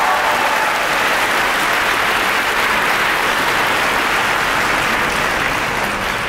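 A large audience applauding steadily, a dense even clatter of many hands clapping, easing off slightly near the end.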